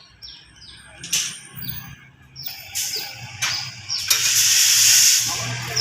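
A loud, steady hiss starts about four seconds in, over repeated short falling chirps and a few sharp clicks.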